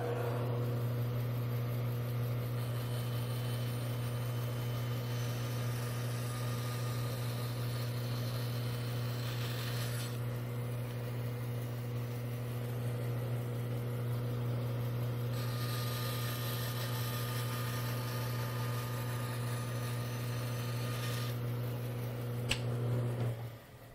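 Bandsaw with a 3/8-inch blade running with a steady motor hum, cutting through a small block of wood twice, each cut adding a hiss for about five seconds. A click near the end, then the hum cuts off.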